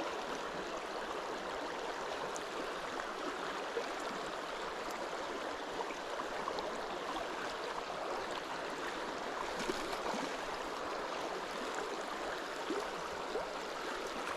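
Steady sound of river water running past, an even rush with a few faint ticks scattered through it.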